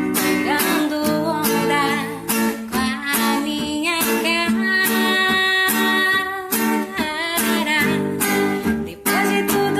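A woman singing a song with guitar accompaniment.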